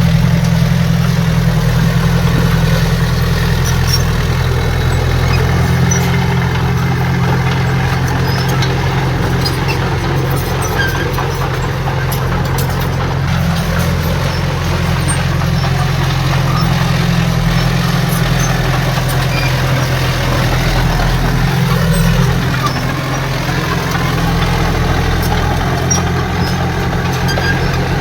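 Heavy diesel engine of earthmoving equipment running steadily with a deep, even drone.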